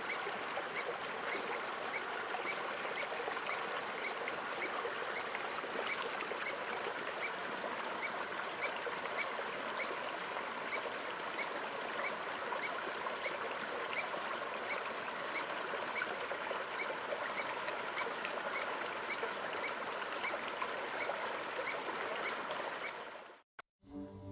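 A steady run of short, high chirps repeating evenly at about two to three a second over an even rushing noise, typical of a small mammal's repeated alarm call. Near the end it cuts off abruptly and orchestral music begins.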